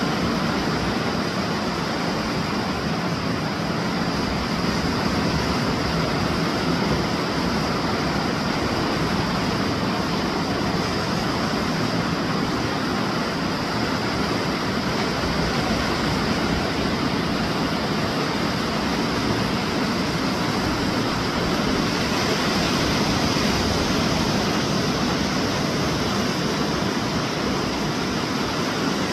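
Steady, even rush of surf breaking along a Gulf of Mexico beach.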